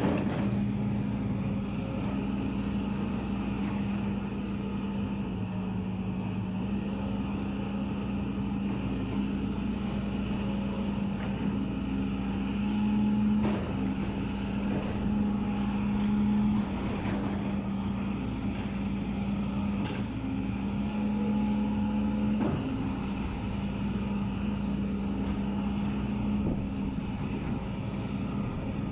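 Backhoe loader's diesel engine running steadily, growing louder for a few seconds at a time as it takes load, with a few faint knocks.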